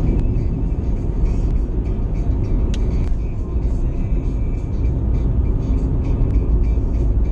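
In-cabin road noise of a car cruising at highway speed: a steady low rumble of tyres on the road and the running engine. There is one brief tick a little under three seconds in.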